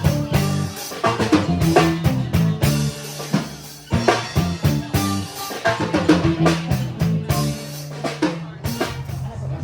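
A live band playing: a drum kit with snare and kick drum keeping a steady beat over held low bass notes.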